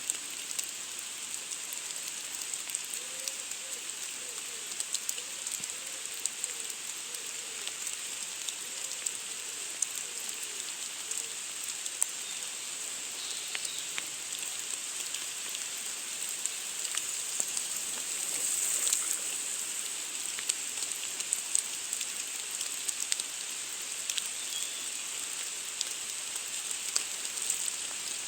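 Steady rain falling, a constant hiss with many individual drops ticking sharply on a surface, swelling a little about two-thirds of the way through.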